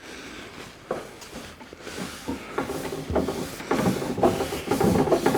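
Very fine wire wool scrubbing across the dirty finish of a mahogany table top: irregular scratchy rubbing strokes with a few light knocks, growing louder over the last few seconds.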